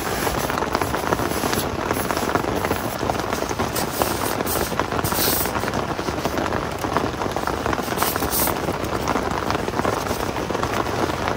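Heavy rain drumming on a tent's flysheet, heard from inside the tent as a dense, steady patter. Twice, about five and eight seconds in, there is a brief rustle as a folding foam sleeping pad is handled on the tent floor.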